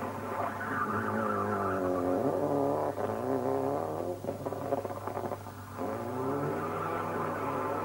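Toyota Celica rally car's turbocharged four-cylinder engine driven hard. The engine note climbs and drops several times as the driver lifts off and changes gear, with some tyre squeal.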